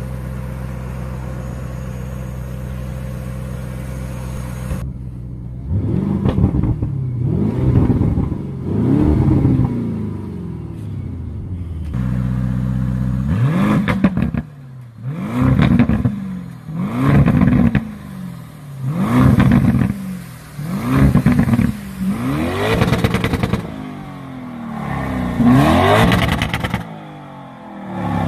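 Lamborghini Urus's twin-turbo V8 idling steadily, then revved repeatedly while standing: about a dozen short blips, each rising and falling in pitch, with a short spell of idle partway through.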